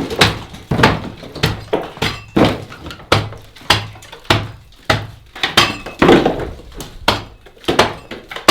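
A plaster and thin terracotta brick partition wall being smashed by hand in demolition: a steady run of heavy blows, roughly one every half second or so, each followed by a short clatter of breaking material.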